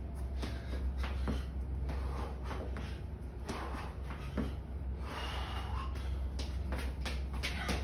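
Athletic shoes tapping and scuffing on a concrete floor during quick warm-up footwork, irregular light steps throughout, with a heavy breath about five seconds in, over a steady low rumble.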